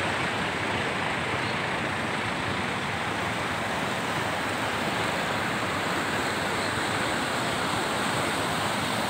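Muddy floodwater rushing steadily across a dirt road and spilling over its edge, a continuous unbroken rush of water.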